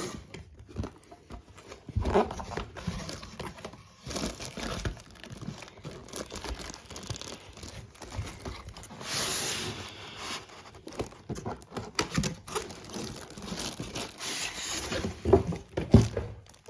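Packaging for a mini sewing machine being handled and unpacked by hand: irregular crinkling and rustling with scattered light knocks.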